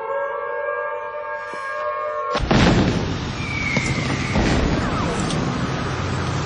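An air-raid siren wails at a held pitch. About two and a half seconds in, a loud shell explosion cuts across it, followed by the continuing rumble and blasts of artillery shelling, with a short falling whistle.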